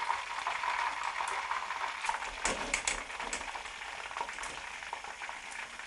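Chunky chips deep-frying in hot vegetable oil in a wire basket, a steady sizzle as they are put back in to crisp up. A few sharp clicks of metal against the pan come about two and a half seconds in.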